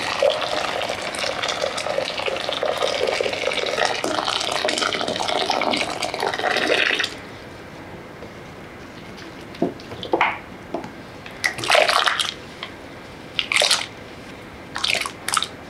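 Water pouring in a steady stream into a glass bowl, stopping about seven seconds in. After it, a handful of short, separate knocks and splashes as cut raw potato sticks are handled.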